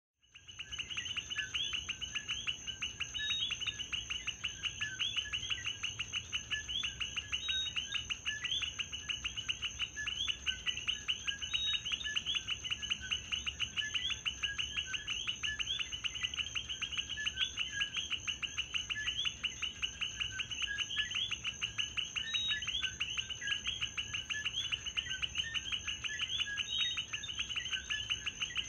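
Night chorus of coqui frogs, many calling their two-note "co-qui" over one another in a dense, unbroken pulsing, with a steady high-pitched insect drone behind.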